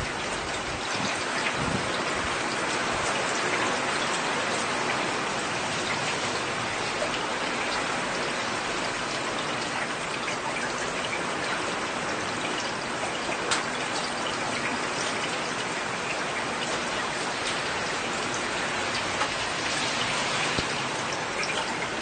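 Heavy rain falling steadily, an even, dense patter of drops.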